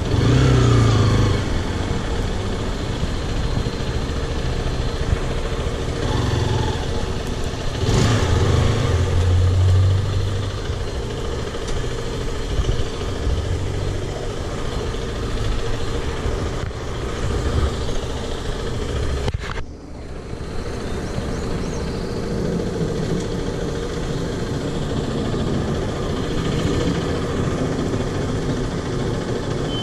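Zontes X1 350's liquid-cooled single-cylinder engine running on the move, under a steady rush of wind and road noise. The engine pulls louder at the start and again about a third of the way through, and the sound dips sharply for a moment about two-thirds through.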